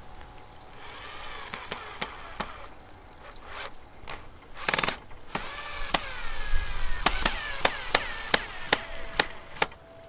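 Cordless drill driving a screw into a wooden fence post. Its motor whine rises and falls over several short runs, and a string of sharp clicks comes near the end.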